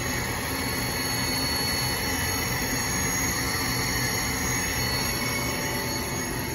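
Haas VF-2 vertical machining center's spindle running at speed, a steady high whine over the machine's running hum.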